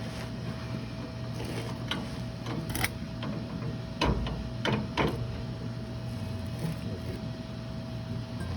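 A few sharp metal knocks and clinks of hand tools and parts being worked on a truck's rear differential, over a steady background hum.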